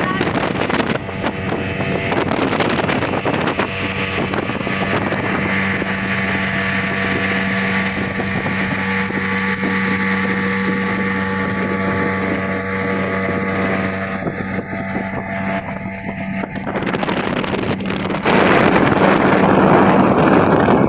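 Motorboat engine running steadily at speed, with water rushing and splashing past the hull. The rush of water and wind grows louder near the end.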